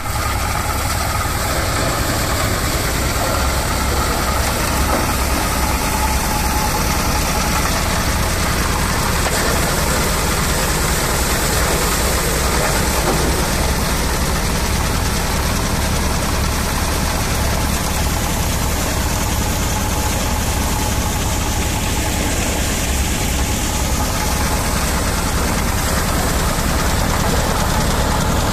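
Engine-driven threshing machine running steadily while bundles of dried lentil plants are fed into its drum for threshing: a loud, even drone with a steady low throb and a wide hiss over it.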